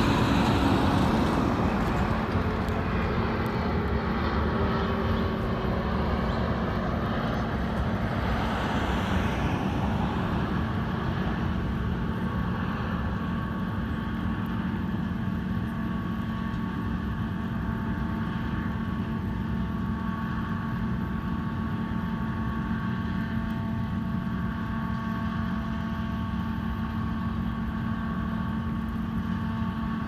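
Steady engine and traffic hum with a few steady tones in it, louder for the first ten seconds or so as a vehicle goes by, then even.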